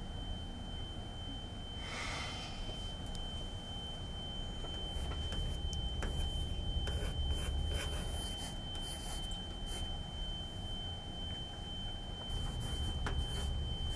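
A single steady high-pitched tone, like a pure sine tone, held at one pitch without change, over a low rumble.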